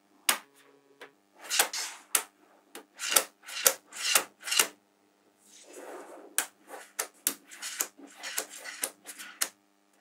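Small metal magnetic balls clicking and snapping together as strips of balls are joined onto a flat sheet of them, with a dry rattling and scraping of the balls shifting on the table between the sharp clicks. The clicks come in irregular clusters, a steadier quick run of them in the second half.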